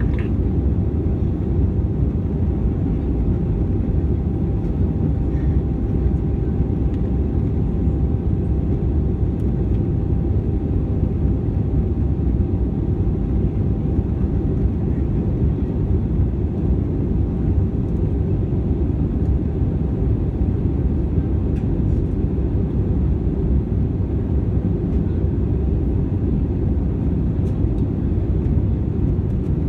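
Airbus A320 cabin noise in flight, heard at a window seat over the wing: a steady, deep rush of engine and airflow. A faint steady hum runs with it and fades out about halfway through.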